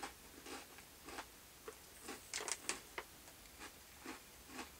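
Faint, irregular crunches of someone chewing Butterfinger-coated mini pretzels, about two a second, with a brief cluster of louder crackles about two and a half seconds in.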